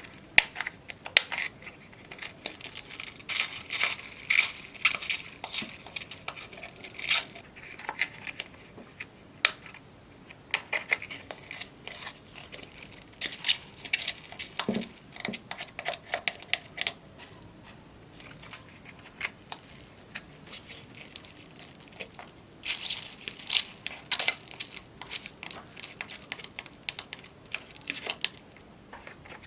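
Slime being worked by hand: clusters of sharp, wet crackling and popping clicks in bursts, with quieter gaps between.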